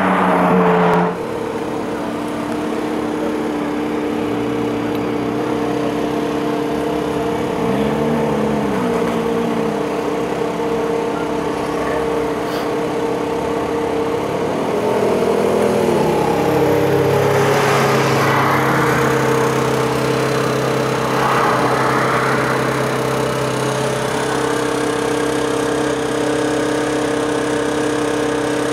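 Ferrari 430 Scuderia's 4.3-litre V8 idling steadily as the car creeps along, with two brief small blips of the throttle, about 8 and 15 seconds in. A louder engine note cuts off about a second in.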